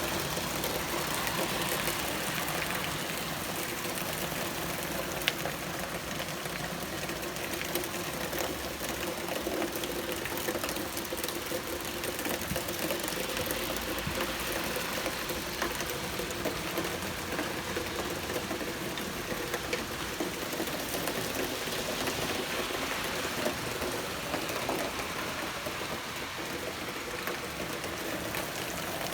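Heavy rain falling steadily, a dense even hiss of drops, with a faint steady hum underneath and a single sharp tick about five seconds in.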